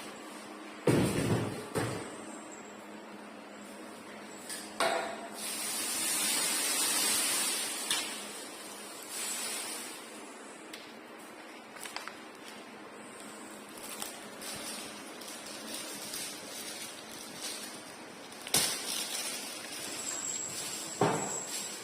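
Packaging and a new LG washing machine being handled during unboxing: scattered knocks and thumps, with a longer hissing rustle about five to eight seconds in.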